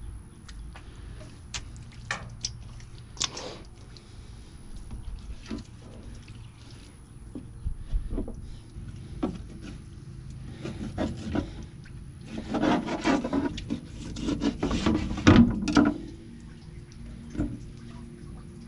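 A knife and hands working snapping turtle meat on a plastic cutting board: scattered taps and knocks, then a dense run of clicking and scraping from about twelve to sixteen seconds in.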